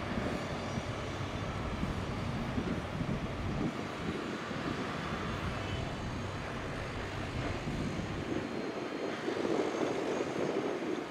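Caterpillar 336 excavator's diesel engine running steadily while it works its demolition grapple. About eight seconds in the deep part of the sound fades and a higher hum takes over, a little louder.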